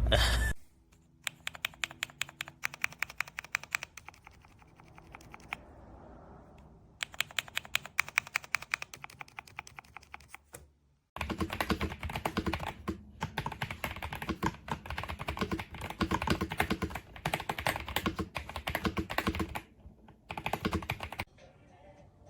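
Typing on an RK Royal Kludge S98 mechanical keyboard: rapid trains of key clacks in bursts with short pauses. The typing becomes heavier and more continuous about halfway through and stops shortly before the end.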